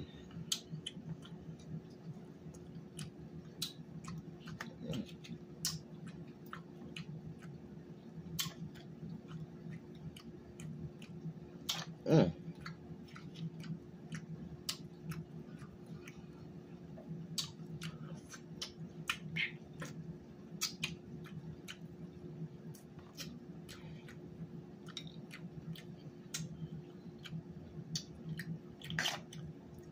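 Snow crab leg shells cracking and clicking irregularly as they are broken open by hand, mixed with chewing, over a steady low hum. One louder knock about twelve seconds in.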